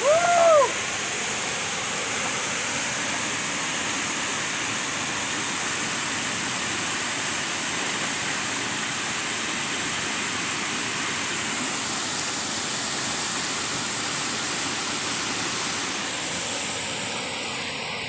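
Waterfall plunging into a rock pool, a steady, unbroken rush of water. Right at the start a short rising-and-falling shout rings out over it.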